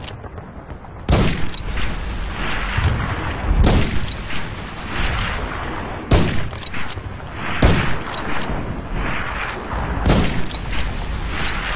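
Mosin–Nagant M91/30 bolt-action rifle (7.62×54mmR) fired five times, roughly two to two and a half seconds apart. Each shot is a sharp crack followed by a long rolling echo.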